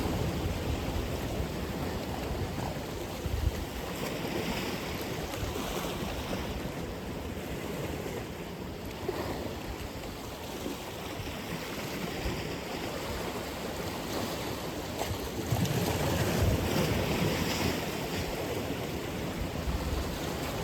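Atlantic Ocean surf washing onto the shore in a continuous rush, with one wave breaking louder for a couple of seconds about three-quarters of the way through. Some low rumble of wind on the microphone runs under it.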